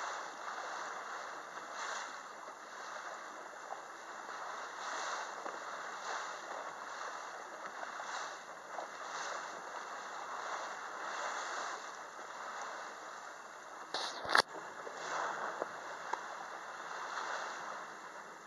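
Water lapping and sloshing against the hull of a small boat drifting in a light chop, in soft surges every second or two. A sharp knock about fourteen seconds in is the loudest sound.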